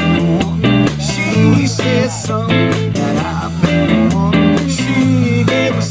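Live blues-funk band playing: electric guitar and bass guitar over drums, with a steady beat.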